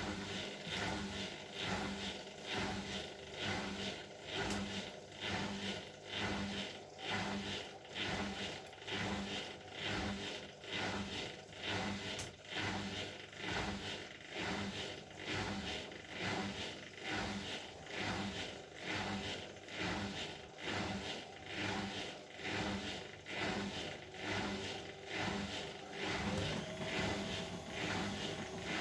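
Bosch Maxx WFL 248Y front-loading washing machine running, its motor humming while the drum turns, with a swishing scrape about once a second as it rotates. Near the end a faint rising whine comes in.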